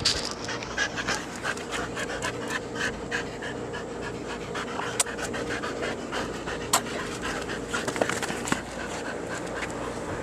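Springer spaniel panting rapidly and hard close to the microphone, out of breath from chasing a frisbee. A few sharp clicks come through around the middle and later on.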